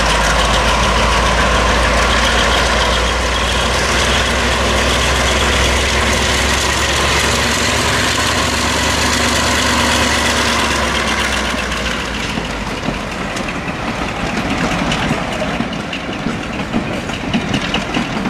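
Class 35 Hymek diesel-hydraulic locomotive's Maybach V16 engine working under load as it hauls a train, a loud heavy thrash with exhaust smoke. About twelve seconds in the engine sound eases off, leaving a lower, uneven clatter of the passing coaches on the track.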